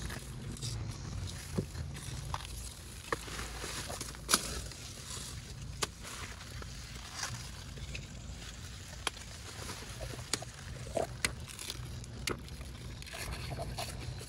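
Garden plants handled while being picked over: a scatter of sharp snaps and rustles, the loudest about four seconds in, over a steady low rumble of wind on the microphone.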